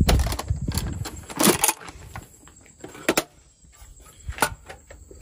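Several separate sharp clicks and knocks of a Galil-pattern 5.56 rifle and its bipod being handled on a shooting bench, with quiet gaps between them.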